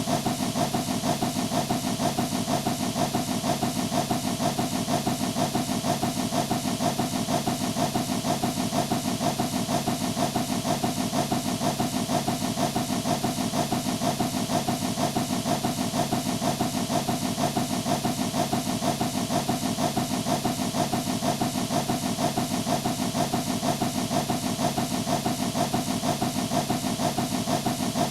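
Steam engine sound effect: steam hissing in a rapid, even pulse over a steady hum, unchanging throughout.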